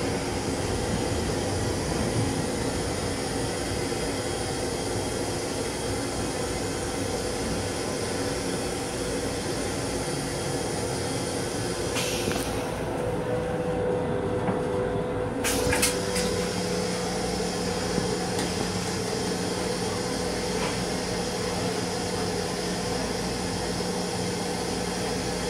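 Steady hum and rumble of a Metro-North M7 electric railcar, heard from inside its small restroom. A steady tone runs throughout, and a lower hum joins a little past halfway.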